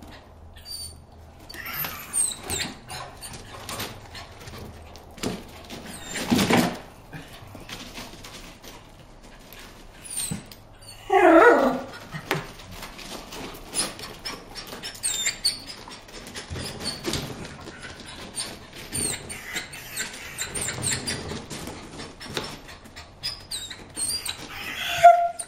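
Dog vocalizing: one short loud bark about six seconds in, a wavering whine around eleven seconds, and a brief whine near the end, with faint scattered clicks between.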